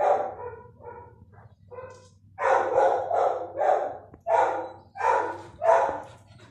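A dog barking repeatedly: a loud bark at the start and a few quieter ones, then a run of about five loud barks in quick succession from about two seconds in.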